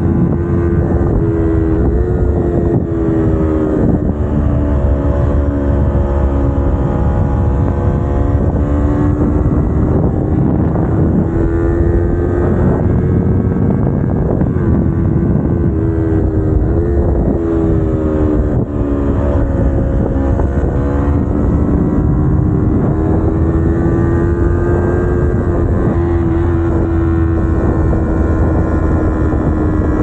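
Kawasaki Ninja 250R's parallel-twin engine running under way, its pitch rising and falling as the throttle opens and closes through the bends. Wind rumbles on the microphone.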